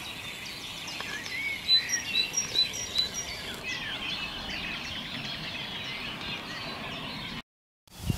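Birds singing at dawn, several voices chirping at once, with one bird repeating a short clear note about five times between one and three seconds in. The sound cuts off abruptly near the end.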